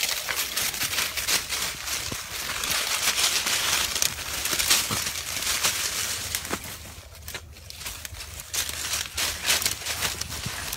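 Dry twigs and dead leaves of a brush pile crackling and snapping as a Patterdale terrier puppy pushes through it, a dense run of small clicks and rustles. It goes briefly quieter about seven seconds in.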